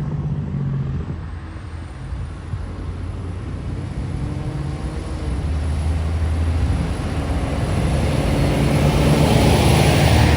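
Diesel semi truck approaching and passing, its engine rumble and tyre noise growing louder and peaking near the end.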